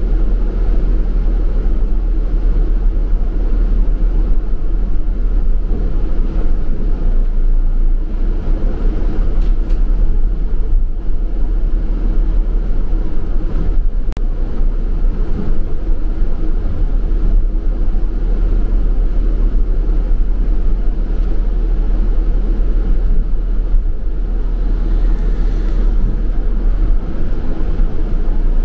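Double-decker bus in motion, heard from inside: a steady low drone of engine and road noise.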